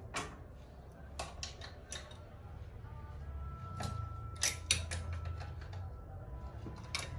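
Scattered metallic clicks and knocks as parts are handled and fitted at an industrial sewing machine's under-table motor, the loudest pair about four and a half seconds in, over a low steady hum.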